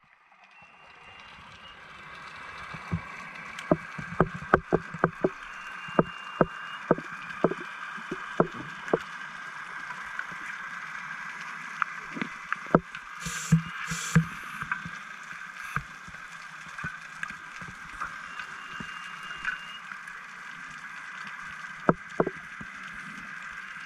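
Underwater ambience picked up through a diving camera's housing: a steady hiss with many sharp clicks and knocks scattered through it, clustered early, halfway and near the end. Two short hissing bursts about halfway.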